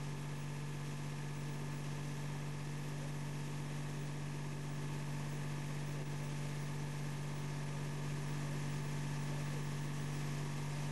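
Steady, unchanging low machine hum from the oil skimmer's drive running.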